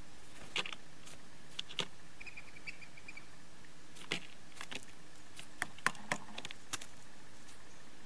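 Scattered sharp taps and clicks of a blue jay landing on a wooden bird table and picking at the seed on it, with a brief fast run of high bird notes a little over two seconds in.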